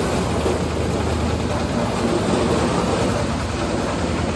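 Engine-driven corn thresher, a type that threshes maize with the husk still on, running steadily while whole cobs are fed into its hopper. A constant low engine hum sits under a dense rushing threshing noise.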